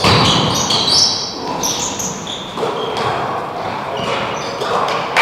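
Basketball play on an indoor court: a ball bouncing and thudding, with short high sneaker squeaks on the floor, most of them in the first couple of seconds.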